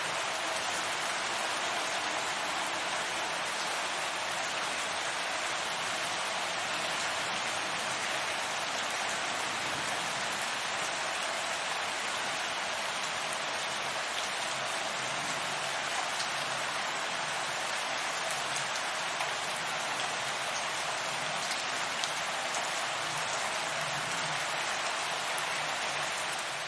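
Steady rain falling, an even hiss with a few faint individual drop ticks.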